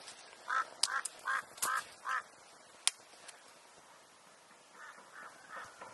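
A duck quacking: a quick run of five quacks, then three fainter ones near the end, with a few sharp clicks among the first calls.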